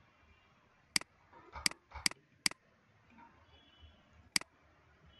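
Computer mouse clicking: five sharp single clicks at uneven intervals, three of them close together around two seconds in.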